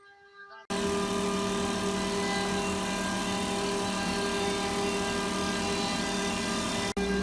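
CNC wood lathe running, a steady motor whine with an even noise of cutting over it, starting abruptly under a second in and breaking off for an instant near the end.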